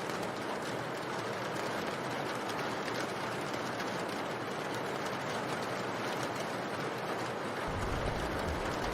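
Steady rain, an even hiss with no distinct drops standing out. A low rumble joins near the end.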